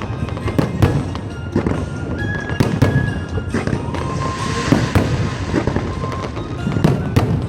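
Fireworks going off in quick succession: many sharp bangs with rumbling echoes, and a spell of crackling hiss near the middle.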